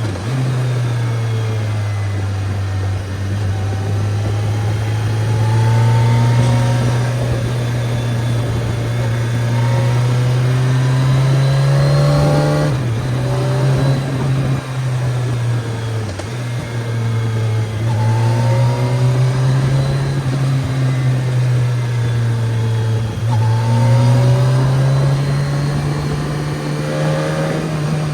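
BMW K1300S inline-four motorcycle engine pulling under throttle. The note climbs slowly and drops back several times, most sharply a little before halfway through.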